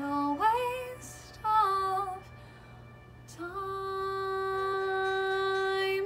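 A woman singing the final phrases of a musical-theatre ballad, solo over soft accompaniment: two short phrases with vibrato, then one long held note that cuts off at the end.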